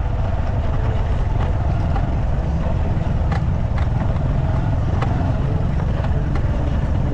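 Motorcycle engine running steadily while riding a dirt road, with a few short sharp knocks about halfway through.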